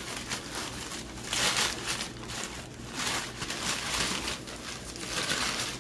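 White paper wrapping crinkling and rustling in irregular bursts as it is handled and pulled off a potted plant.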